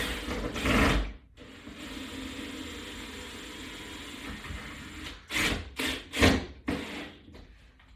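Mounting screws being tightened with a driving tool: mechanical whirring and clicking, steadier in the middle, with several short loud bursts near the end.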